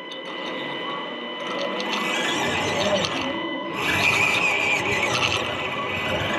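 Small electric motor and gearbox of a radio-controlled scale off-roader whining as it drives, heard from a camera mounted inside its cab. It gets louder about two seconds in and again about four seconds in.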